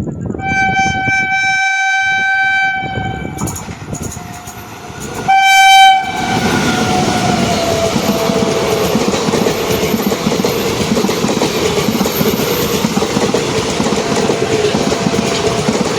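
Indian Railways locomotive horn blows one long blast, then a second, louder short blast about five seconds in, its pitch falling as the train goes by. Then comes the steady rush and rattling clickety-clack of the coaches passing at high speed.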